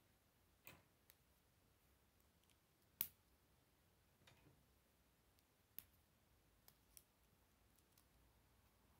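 Plastic K'nex pieces clicking against each other as they are handled and fitted together: a handful of separate sharp clicks, the loudest about three seconds in.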